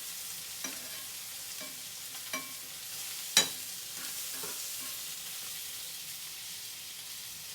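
Eggplant frying in oil in a pan, sizzling steadily, with a handful of sharp clicks from a utensil stirring against the pan. The loudest knock comes about three and a half seconds in.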